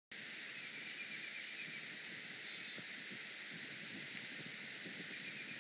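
Steady outdoor ambience at a heron nest camera: an even hiss with a faint, high, rapid trill in the middle, and a single sharp click about four seconds in.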